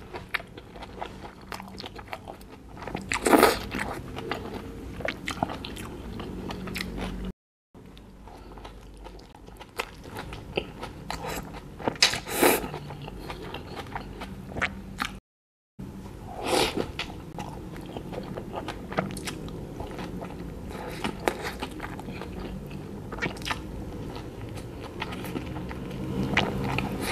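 Close-miked biting and chewing of an oblong chicken cheese burger on a soft bun with slaw and sauce: wet, squishy mouth sounds with many small clicks and a few louder bites, about three seconds in and around twelve seconds. The sound cuts out completely for a moment twice.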